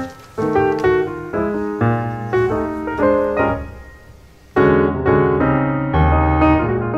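Piano music: single notes and chords struck one after another, fading out to a brief lull about four seconds in, then picking up again with a loud chord.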